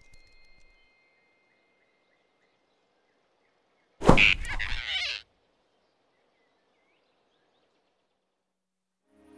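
A sudden loud whoosh about four seconds in, lasting about a second, hardest at its start with a low thud, like a cartoon swish effect. The rest is near silence, with soft music starting at the very end.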